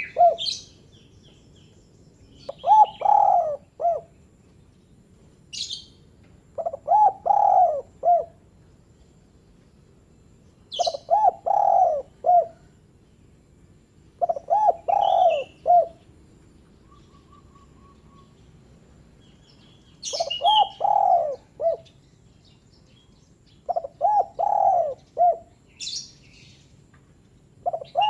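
Spotted dove (derkuku/terkukur) giving its short cooing call: a phrase of three to four low coos, repeated about every four seconds with one longer pause midway. Thin high chirps of small birds come in between the phrases.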